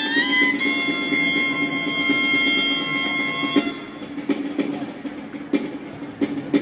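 Folk street music for a giants' dance: a reedy wind instrument holds a melody over a drum, then stops about three and a half seconds in, leaving the drum beating alone with separate, uneven strokes.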